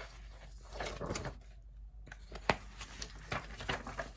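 Paper rustling as the pages of a printed booklet are handled and turned, in short scattered rustles with a sharp click about two and a half seconds in.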